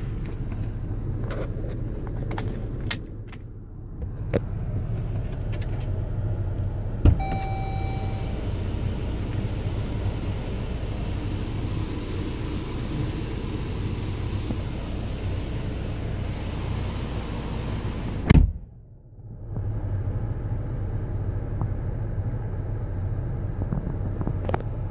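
Steady low rumble of a Jeep's engine running, heard inside the cabin. About seven seconds in comes a click, then a short electronic chime. Near the two-thirds mark there is a loud knock, and the sound dips briefly.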